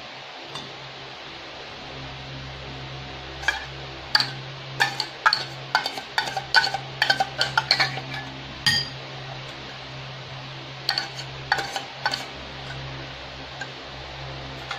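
Sharp metallic clinks and knocks of a tin can of tuna against a ceramic bowl as the tuna is shaken and scraped out of it: a quick irregular run of them from about three seconds in to about nine, then a few scattered ones. A steady low hum runs underneath.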